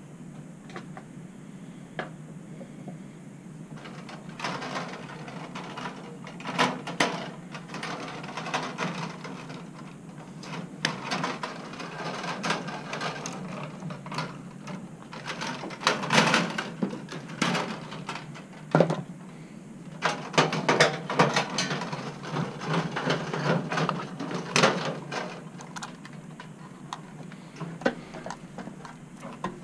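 Hands working inside an open fluorescent light fixture: irregular clicks, rattles and rustling from the wires, connectors and sheet-metal housing, in clusters with short pauses between.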